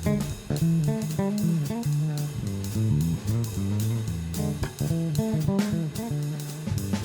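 Background music: bass and guitar lines over a steady drum beat.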